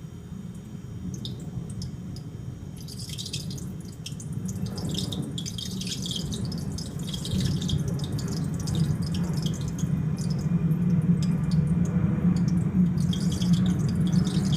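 DB52X refrigerator making a sizzling, crackling noise like burning oil over a steady low hum, growing louder. The noise began after the compressor was replaced in the nearly new fridge.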